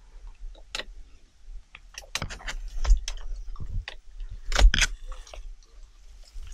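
Dry reed stalks rustling and cracking as someone pushes through a reedbed in waders: a string of irregular sharp cracks, the loudest about three seconds in and near the end, over a low rumble.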